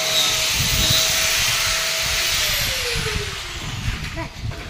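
A power tool's electric motor running with a steady whine and hiss, then spinning down to a stop, its pitch falling over about a second from about two and a half seconds in.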